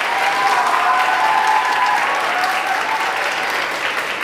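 Audience applauding: many hands clapping in a dense, steady patter, with a faint held tone under it for the first few seconds.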